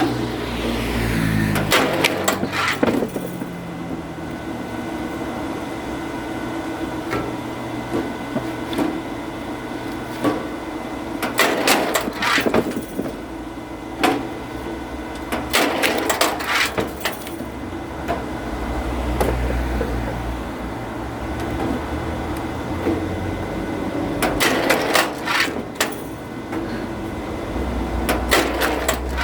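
Oak firewood being split: several bursts of sharp wood cracking and splintering, each lasting a second or two, over a steady machine drone.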